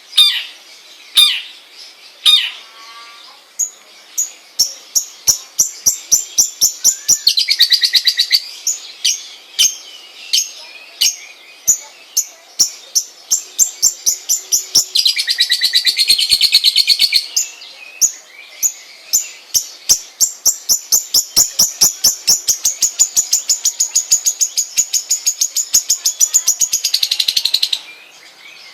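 Long-tailed shrike (cendet) singing: a long series of sharp, high chirps that speed up from about one a second to several a second. The chirps are broken three times by rapid buzzy trills.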